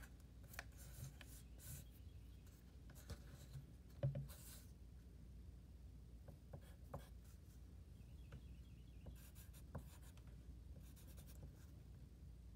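Faint scratching of a pencil writing on a paper worksheet, with scattered small taps and a soft knock about four seconds in.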